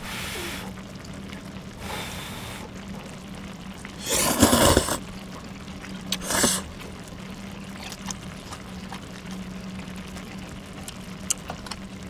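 Blowing softly on hot flat glass noodles twice, then slurping them into the mouth in two loud slurps, a longer one about four seconds in and a shorter one about six seconds in.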